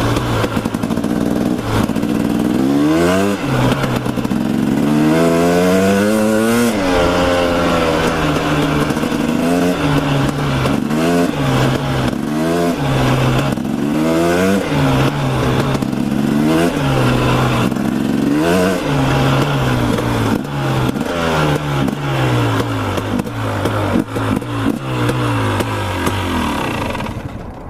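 Dirt bike engine under way, its pitch climbing again and again as the throttle is opened and backed off, mixed with wind noise on the microphone. It drops away near the end.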